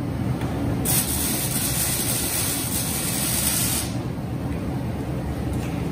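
Welding arc hissing for about three seconds under the trailer frame as fork-pocket channels are welded on, over a steady low hum.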